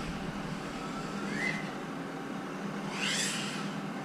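Ducted FPV quadcopter's motors and propellers whirring, the whine rising and falling in pitch with two throttle punches, a small one about a second in and a louder one about three seconds in.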